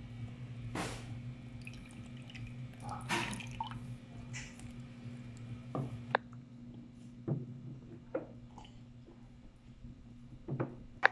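A child's small wet sipping and mouth sounds, drinking through a plastic straw from a ceramic mug, with scattered light clicks and knocks of the mug and dishes on a wooden table. A steady low hum runs underneath.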